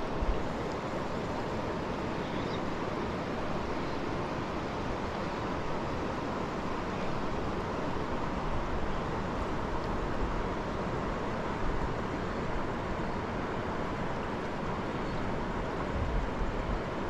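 Steady rushing of river water flowing over rocks and shallow riffles, with brief low bumps just after the start and near the end.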